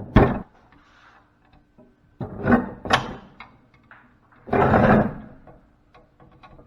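Knocks and scraping of hand tools against a large fuse holder's plastic shell and metal parts while it is being pried apart. There is a sharp knock at the start, two more knocks around two to three seconds in, and a longer scrape a little past halfway.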